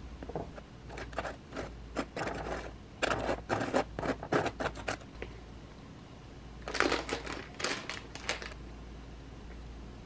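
Table knife spreading basil pesto on toasted bread, a run of quick dry scrapes of the blade over the crust. After a short pause, a second quick burst of rustling and crinkling, as the plastic package of sliced ham is handled and opened.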